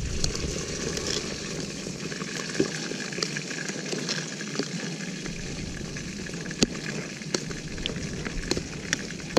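A metal spoon clinking against a ceramic bowl of broth a few times as it stirs and scoops, over a steady background hiss.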